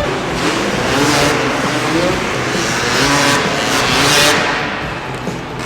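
An engine revving up and down several times over loud arena noise.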